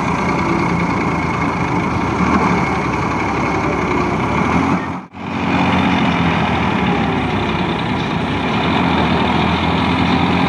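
Massey Ferguson 241 tractor's three-cylinder diesel engine running steadily under load as the tractor pulls through a mud field. The sound breaks off for an instant about halfway through.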